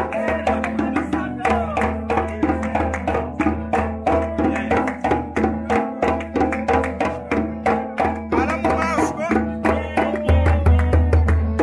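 Music with a fast, even percussion pattern over a steady low bass, with a melodic line above.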